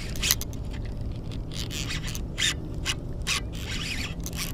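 Fishing reel working while a hooked fish is fought: irregular short bursts of ratcheting and scraping from the reel.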